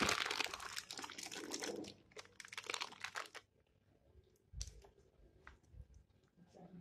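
Butter paper crinkling as it is peeled away from a slab of carrot burfi, ending about three and a half seconds in. Afterwards, a few soft knocks as a knife cuts down through the burfi.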